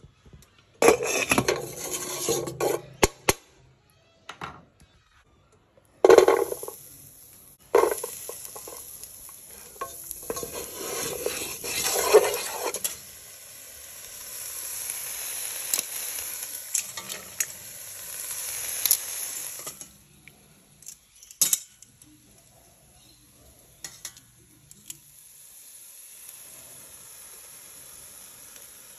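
Pipi shells clattering and clinking against each other and a stainless steel saucepan as they are stirred and shaken, in several bursts through the first half. A quieter steady hiss follows, then a single clatter.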